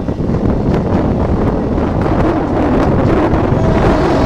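Wind buffeting the microphone, held out of a passenger train running at full speed, over the steady rumble of the train.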